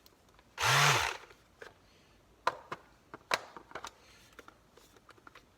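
Handling noise as an 18V lithium-ion battery pack is worked into a cordless detail sander: a brief rushing burst about half a second in, then scattered sharp plastic clicks and knocks, the battery being a tight fit.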